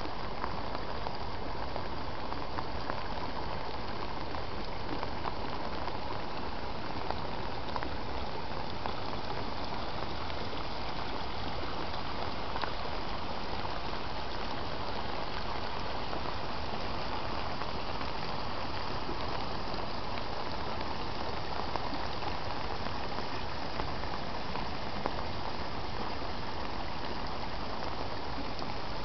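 Steady rushing of a mountain stream and waterfall, an even hiss of water that holds at one level throughout.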